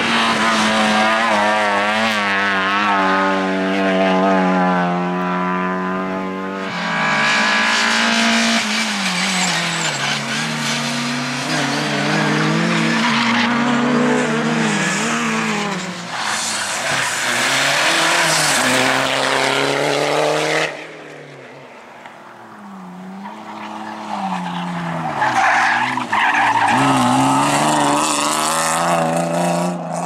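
Rally cars taken one after another through a tarmac corner at full attack, engines revving hard with the pitch climbing and dropping through gear changes and throttle lifts, and tyres skidding. The first is a Lada 2107, holding a high steady rev; the engines drop away briefly about two-thirds through before the next car comes in.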